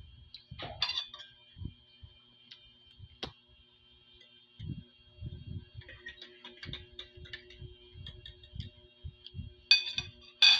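A metal fork clinks sharply twice against a ceramic plate near the end, with soft irregular knocks of eating and handling throughout.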